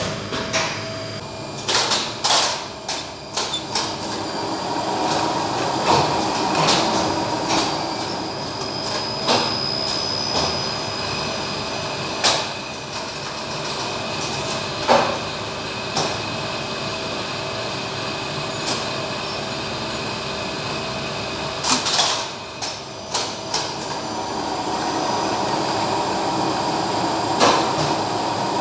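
Lift machine room of a 1971 Flohr Otis DC gearless lift with relay control: a steady hum of running machinery under clusters of sharp clacks from the controller's relays and contactors and the machine brake as the lift starts and stops.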